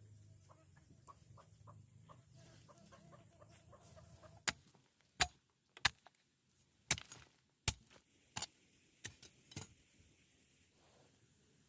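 Chickens clucking softly in short, repeated calls, followed by a series of about eight sharp clicks or taps spaced under a second apart, which are the loudest sounds.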